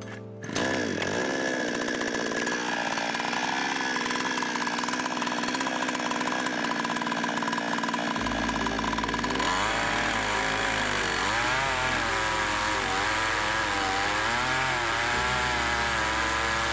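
52cc two-stroke HAIGE HG-F5200 chainsaw in a chainsaw mill. It revs up about half a second in and holds a steady high rev, then from about halfway its pitch wavers as the chain bites into the log under load.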